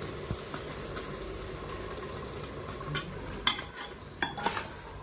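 Water poured into a pressure cooker of fried beef keema, sizzling steadily in the hot oil, then a steel ladle stirring and knocking against the aluminium cooker's side about four times near the end.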